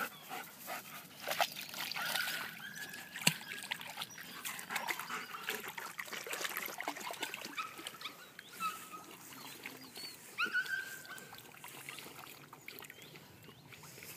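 Alaskan Malamute puppy whimpering in a few short high cries, the clearest about two seconds and ten seconds in, over water splashing and trickling as it paddles.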